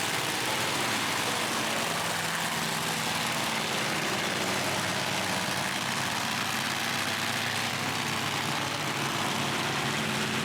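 A vehicle engine idling steadily, its low hum holding one pitch under a constant rushing noise.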